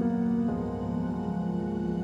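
Slow ambient background music of held chords, changing chord about half a second in.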